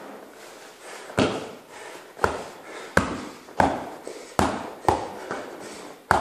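Strikes landing on a tall standing punching bag: about eight sharp smacks at uneven intervals, each with a short echo.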